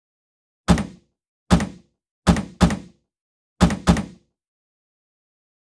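Six deep, sharp thuds in a rhythm: two single hits, then two quick pairs. Each dies away within a fraction of a second, with dead silence between them, as in an edited-in percussive sound effect.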